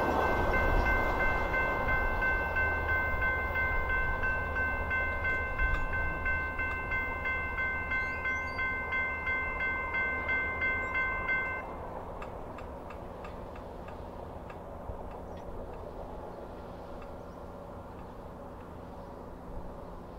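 A level crossing's electronic bell rings with a pulsing tone about twice a second over the fading rumble of a departing VIA Rail passenger train. The bell cuts off suddenly just past halfway, leaving the train's rumble dying away.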